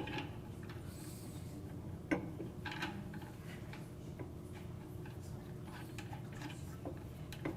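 Light clicks and one sharper knock about two seconds in, from metal parts of a large meat grinder being handled and fitted together, over a faint steady room background.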